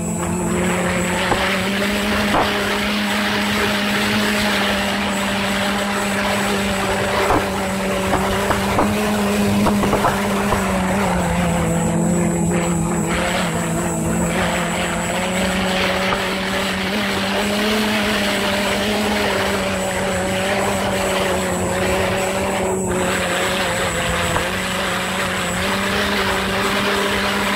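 Helicopter engine and rotor heard from inside the cabin as it comes down to land: a loud, steady drone whose pitch dips slightly about halfway through.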